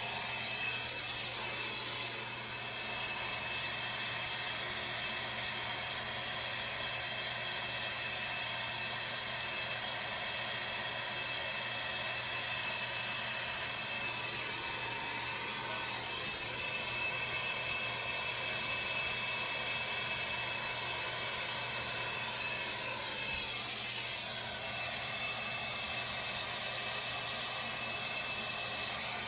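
Plumber's soldering torch burning with a steady hiss while heating a copper joint to sweat a 2-inch ball valve.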